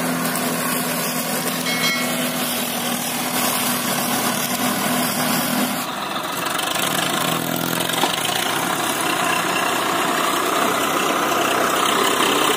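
Swaraj tractor diesel engine running steadily, with a change in the engine sound about halfway through.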